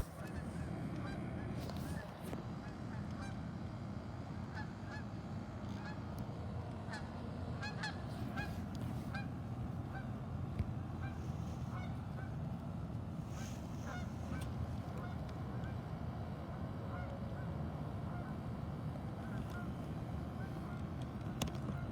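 Canada geese honking, many short calls scattered and overlapping throughout, over a steady low background rumble.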